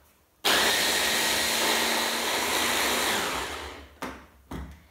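Stick blender on a chopper bowl attachment runs for about three seconds, puréeing spinach leaves with water; it starts abruptly and then winds down. Two short knocks follow near the end.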